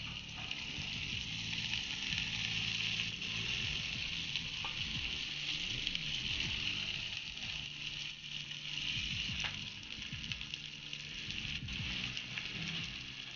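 Onions, dried red chilies and freshly added moringa leaves sizzling in hot oil in a metal pan: a steady hiss with a few faint clicks.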